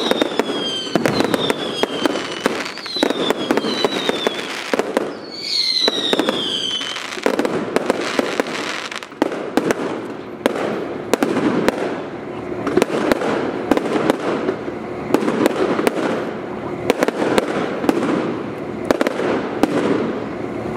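Fireworks display: a rapid run of sharp bangs and crackling bursts, with several falling whistles in roughly the first seven seconds.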